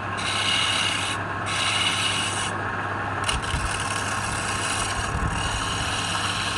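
A wood lathe running with a steady low hum, while something is pressed against the turning wood in hissing, rubbing passes about a second or two long, with short breaks between them.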